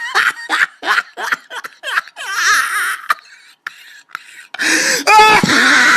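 A person laughing in a quick run of short bursts, dying down, then a loud high-pitched cry or scream starting near the end.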